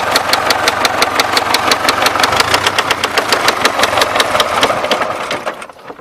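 DT-75M crawler tractor's SMD-18 four-cylinder diesel running with a rapid, even, sharp knock, then shut off near the end, the knocks slowing as it winds down. The knock comes from spun connecting-rod bearings.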